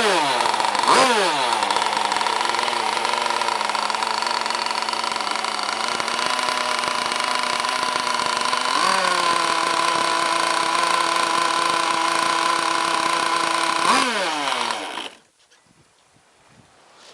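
Zenoah-type two-stroke gasoline engine of a large RC racing boat running on a test start. It idles with quick throttle blips that shoot up and fall back, rises to a faster steady speed about nine seconds in, blips once more, then shuts off about fifteen seconds in.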